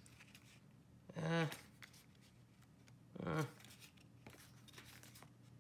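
Sheets of paper being handled and laid flat, faint rustling and light taps, with two short voiced sounds, a hum or murmur each, about a second and about three seconds in.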